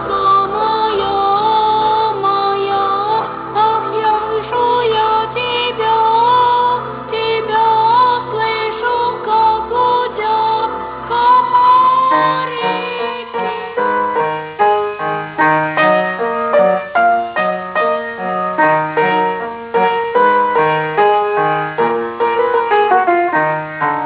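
Music: high voices sing a slow, wavering melody over sustained low accompaniment. About halfway through it changes to a piano playing a lively tune of separate notes over a jumping bass, which stops abruptly at the end.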